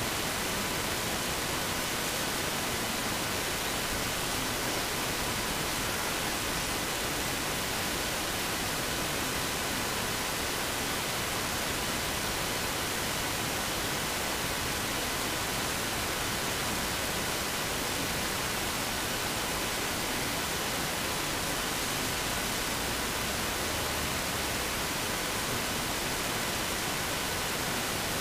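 Steady, unchanging hiss like static, with faint constant whistle tones in it.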